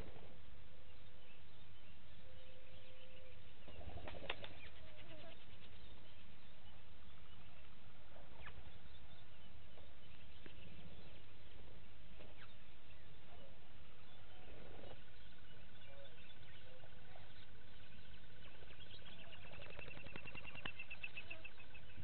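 Bush ambience of wild birds calling over a steady hiss: a low held hooting note twice near the start, scattered short chirps, and a long steady high tone from about two-thirds of the way in, joined by a fast trill near the end.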